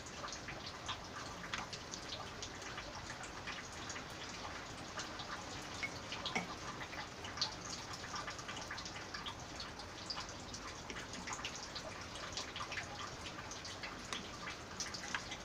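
Faint, irregular small clicks and taps of a metal spoon working thick mango jam in a glass bowl and jar.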